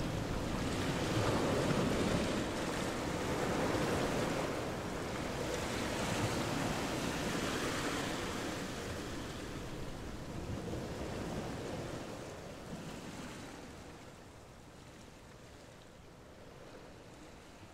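Steady rushing noise of wind on the microphone, with no voices or music, fading down over the second half.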